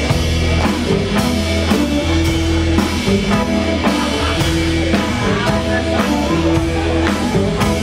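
Live blues band playing an instrumental groove: electric guitars and bass over a drum kit, the drums hitting about twice a second.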